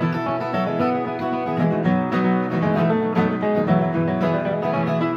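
Live acoustic Americana band playing the instrumental intro of a country song, led by strummed acoustic guitar with a steady rhythm.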